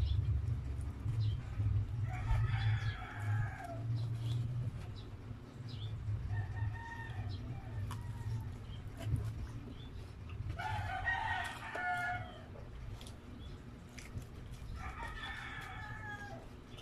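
A rooster crowing four times, each crow about a second long and falling away at the end. Under it are close-miked chewing and wet mouth clicks from someone eating a slice of pizza.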